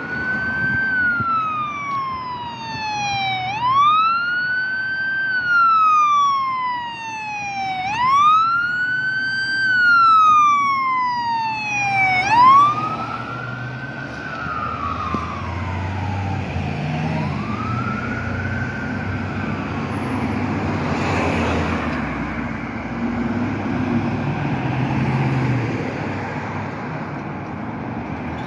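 BC Ambulance Service ambulance siren on wail, sweeping up quickly and falling slowly about every four and a half seconds. It fades away about halfway through as the unit passes, leaving road and traffic noise with another vehicle going by.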